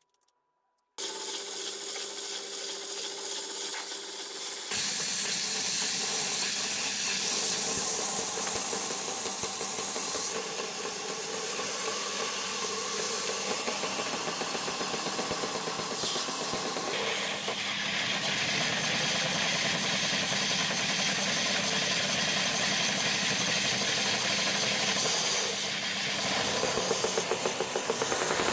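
A homemade plywood belt sander's motor switches on about a second in and runs with a steady hum. From about five seconds in, a piece of plywood is held against the moving sanding belt, giving a steady sanding hiss, with a regular pulsing near the end.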